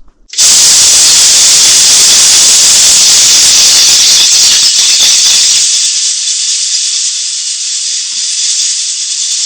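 A loud, steady hiss of rushing air, used to blast creosote out of a clogged pellet stove. The deeper part of the rush drops away a little past halfway, leaving a thinner hiss.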